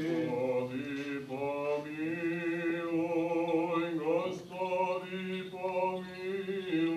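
Unaccompanied Eastern Orthodox funeral chant: a male voice sings a prayer for the departed in long, slow held notes.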